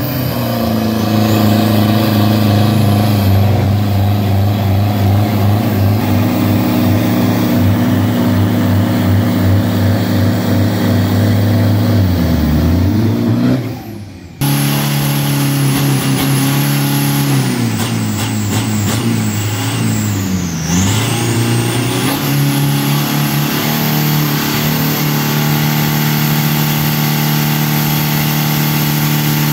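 Tuned drag-racing pickup truck engines running hard, held at steady high revs for long stretches, as in a burnout. About halfway the sound briefly cuts off, then the revs swing down and up a few times before holding steady again.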